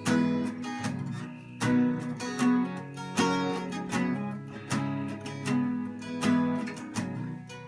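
Acoustic guitar strumming chords in a steady rhythm: the instrumental intro of a country song.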